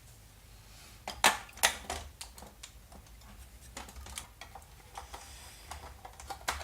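New batteries being fitted into a remote-control car's plastic battery pack: a series of sharp clicks and small knocks, the two loudest a little over a second in, then lighter clicks at uneven intervals.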